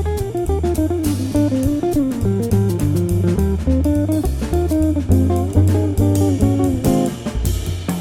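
Background music: a plucked guitar melody moving note by note over a bass line and a steady drum beat.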